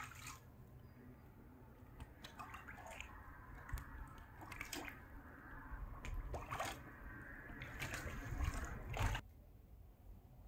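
Wet handling sounds of a freshly caught white bass being unhooked by hand: scattered small clicks, squelches and rustles that grow busier and then stop abruptly near the end, over a steady low rumble.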